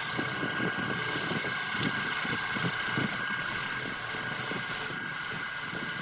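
Wood lathe running, with a tool scraping the spinning redwood: a steady motor whine under a rough hiss and chatter. The hiss drops out briefly three times, about half a second in, at about three seconds and at about five seconds, as the tool comes off the wood.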